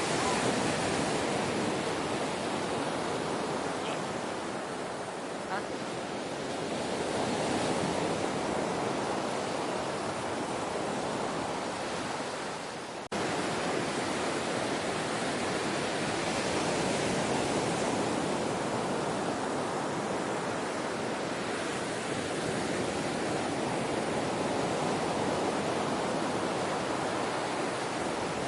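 Ocean surf: a steady wash of waves that swells and eases every several seconds. About halfway through it dips briefly and then cuts back in abruptly.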